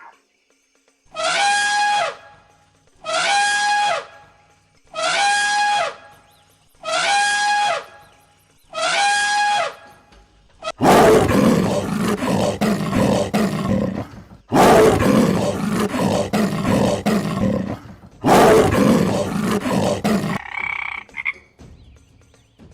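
Animal calls: five identical falling cries about two seconds apart, followed by three long, rough roars.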